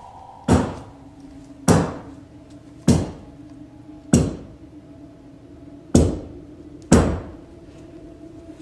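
Six loud, unexplained bangs inside a house, about a second apart with uneven spacing, each with a short ring after it.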